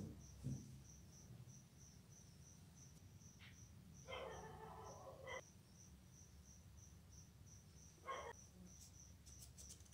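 Near silence with a faint, high-pitched chirp repeating about twice a second, typical of a cricket. A faint distant sound comes about four seconds in, and a shorter one near eight seconds.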